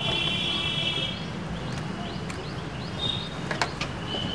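A small bird chirping over and over in short high notes, with a longer, richer call in the first second, over a steady low background hum. A few light knocks about three and a half seconds in as someone climbs into a car.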